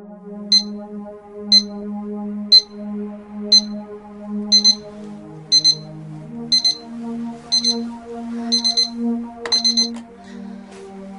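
Digital alarm clock beeping its wake-up alarm: short high beeps once a second, speeding up into groups of two, then three and four per second, until a click near the end stops it. Soft sustained background music plays underneath.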